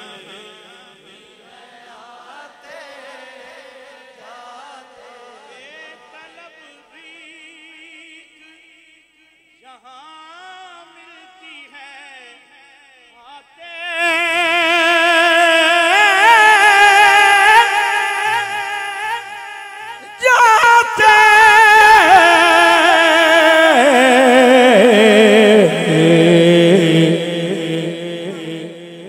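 Naat sung by a male reciter through a microphone: quieter singing for the first half, then about halfway a loud voice holding a long, wavering melismatic phrase without words, breaking off briefly and stepping down in pitch toward the end.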